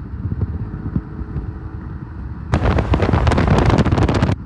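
Cars at highway speed heard from a moving car: a steady low engine and road rumble. About two and a half seconds in it turns into a much louder, rough rush with crackle, as in a hard pull, then cuts off just before the end.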